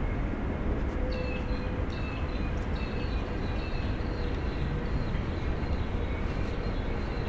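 Steady low hum of city traffic around an inner-city park. From about a second in, short high bird chirps repeat on top of it.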